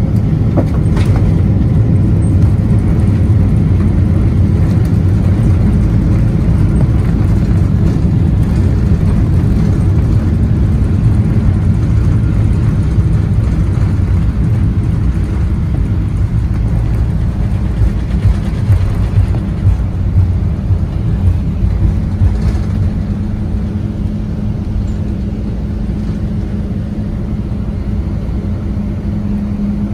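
Cabin noise in a Boeing 777-200ER slowing on the runway after touchdown: a loud, steady low rumble of the wheels and GE90 engines that eases off slowly, with a steady hum coming in about two-thirds of the way through.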